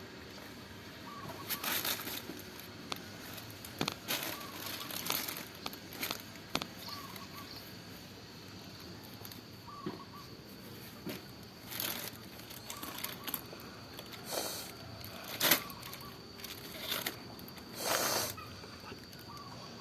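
Intermittent rustling and crinkling bursts, typical of a plastic parcel being handled and opened, with chickens clucking faintly in the background.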